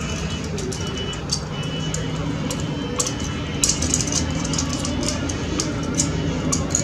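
Light metallic ticks and scrapes of a steel 0.08 mm feeler gauge being worked against a motorcycle valve stem and rocker-arm adjusting screw, checking valve clearance; the gauge won't slide in, so the gap is now too tight. Steady background music runs underneath.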